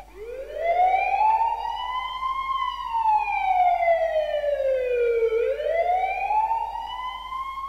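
Emergency siren wailing: the pitch climbs over about two seconds, sinks slowly to a low point about five seconds in, then climbs again near the end.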